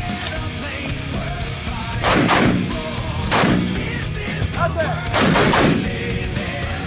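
Three gunshots, each with a short echoing tail, about a second or more apart, over background rock music.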